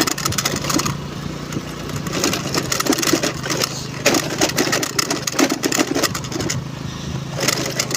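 Honda Navi scooter's small single-cylinder engine running steadily on the move, with frequent knocks and rattles over a rough off-road track.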